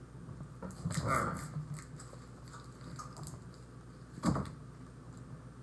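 Clear plastic wrapper of a meat-stick jerky crinkling and tearing as it is pulled open by hand, with a sharp crack a little after four seconds in.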